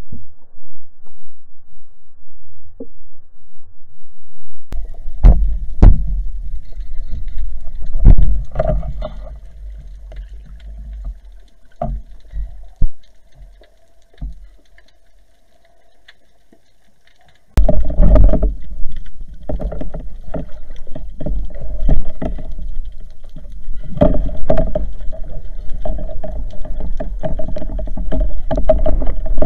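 Underwater noise picked up through a speargun-mounted camera's housing as a diver swims: low rushing water with knocks and bumps on the housing, and a steady droning tone under it. It dies down in the middle, then starts again abruptly and louder.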